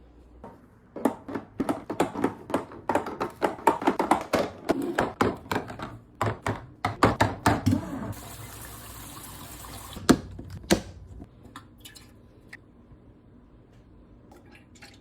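Groceries and plastic water bottles knocking and clattering as they are loaded into a refrigerator, a quick run of knocks for several seconds. Then a steady hiss for about two seconds and two sharp knocks.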